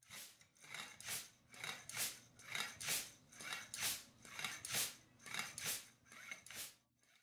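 Hand bicycle pump being worked in a steady rhythm, about seven strokes roughly a second apart, each a short hiss followed by a louder one. The sound is faint.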